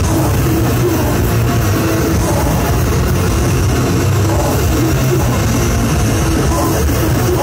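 A live rock band playing loud, dense music on electric guitar and drum kit, with no breaks.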